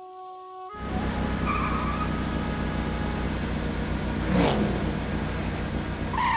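Cartoon car engine sound effect running steadily as the car drives, starting about a second in after a few held musical notes, with a brief swoosh about four and a half seconds in; it cuts off suddenly at the end.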